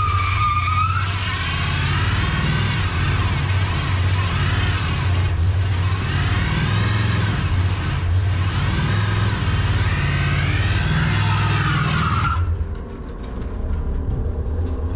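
Old International pickup doing a burnout: the engine is held at high revs while the rear tyres spin and squeal in a wavering screech that rises and falls. The squeal cuts off sharply about twelve seconds in, leaving the engine running lower.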